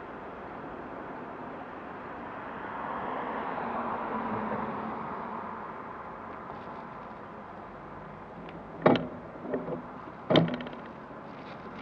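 Road traffic noise, with a car passing about three to five seconds in. Near the end come a few sharp knocks, two of them loud, about a second and a half apart.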